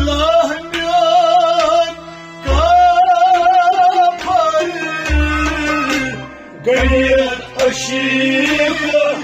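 A man sings a Kashmiri Sufi kalam in a wavering, ornamented line, accompanied by harmonium and rabab, with a deep drum stroke about every two seconds.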